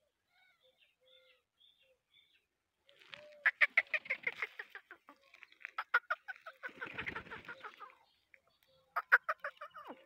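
Black francolin clucking in rapid series of sharp notes, each series starting loud and trailing off. The series come about three seconds in, around the middle, and near the end, with a short rustling noise between the second and third.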